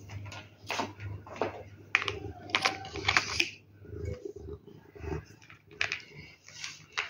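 Dry kibble treats clicking in a clear plastic bowl as it is set down, then a calico cat crunching the treats from the bowl. Irregular sharp clicks and crunches, busiest in the first few seconds.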